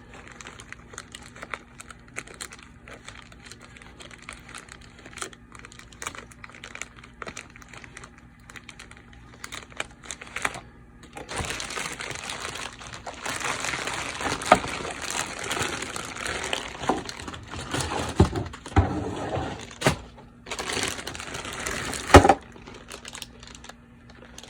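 Packaging crinkling and rustling as a headset cord is pulled out of the pouch it was packed tightly into. It starts as faint handling clicks, grows into louder, denser crinkling about halfway through, and ends with a sharp click near the end.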